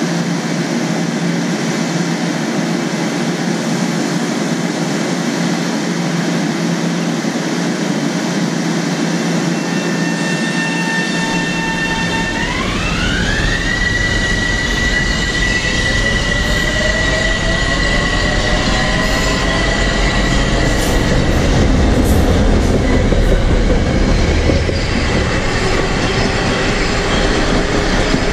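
Metro-North commuter train at the platform: a steady hum and hiss, then about eleven seconds in a low rumble sets in and an electric whine jumps up in pitch, followed by slowly rising lower whines as the train gets moving.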